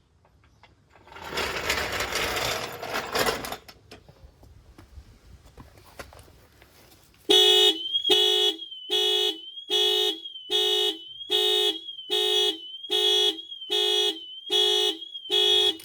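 Toyota RAV4's car alarm going off, its horn sounding about eleven short, evenly spaced honks starting about seven seconds in, set off by the car being dropped off the jack. Earlier, a rushing noise lasts about two seconds.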